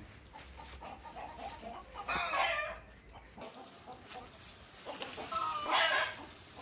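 Chickens calling: two short calls, one about two seconds in and one near the end.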